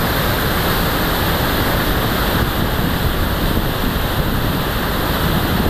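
River water pouring steadily over a low weir and churning into white water below it.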